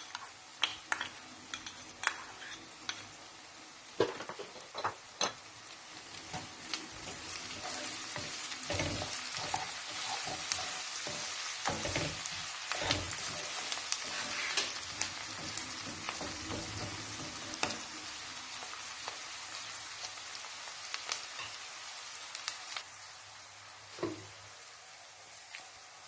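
Food sizzling in a hot frying pan while it is stirred, with sharp knocks of the spoon against the pan in the first few seconds. The sizzle swells after a few seconds, then eases near the end.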